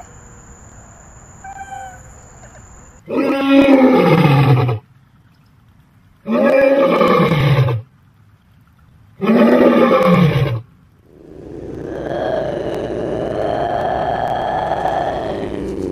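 A lion roaring: three loud calls about three seconds apart, each falling in pitch. A drawn-out wild-cat call of about five seconds follows near the end.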